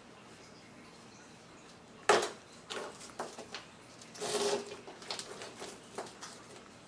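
Stones knocking together as they are handled: one sharp clack about two seconds in, then a scatter of smaller clicks and a short clatter.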